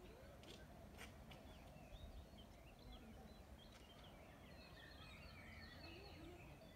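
Faint birdsong: many short chirps and twitters from small birds, busiest in the last couple of seconds, over a low steady background rumble, with a few faint clicks in the first half.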